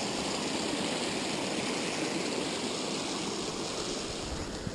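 Small forest creek rushing and splashing over rocks: a steady rush of water that eases a little near the end.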